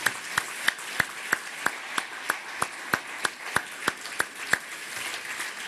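Audience applause, with one person near the microphone clapping loudly and steadily at about three claps a second over the crowd's clapping. The near claps stop about four and a half seconds in, and the crowd's applause goes on.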